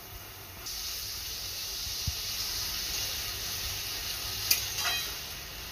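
Sliced onions sizzling as they fry in hot mustard oil in a metal kadai, a steady hiss that brightens a little under a second in. A single sharp click of the spatula on the pan about four and a half seconds in.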